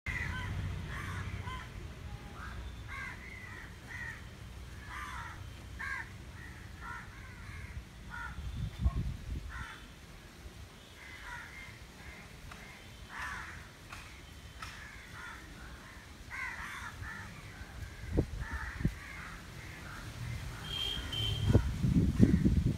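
Crows cawing over and over, short harsh calls one after another, over a low outdoor rumble that swells briefly about nine seconds in and again near the end.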